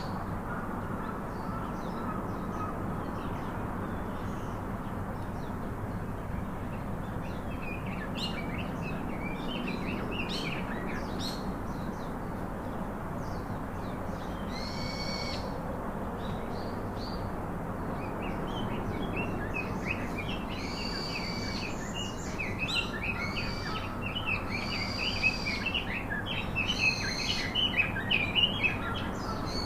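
Several birds chirping and calling over a steady background hiss, with short repeated calls; the calling grows busier and louder in the second half.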